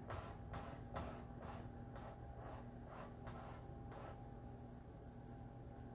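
A handheld squeegee scraping paste across a silk-screen transfer on a plexiglass panel, in quick, faint back-and-forth strokes of about two a second that stop about four seconds in.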